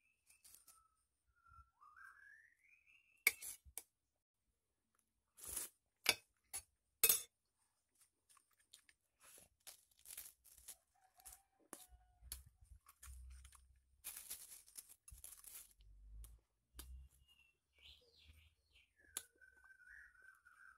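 A metal spoon clinking sharply against a glass plate about four times, followed by soft, irregular chewing and mouth sounds. A faint whistle-like tone rises near the start and wavers near the end.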